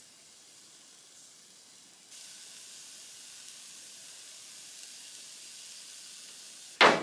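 Faint steady hiss and sizzle from a small fish smoker heating over a methylated-spirits burner, a little louder after about two seconds, then a single sharp knock near the end.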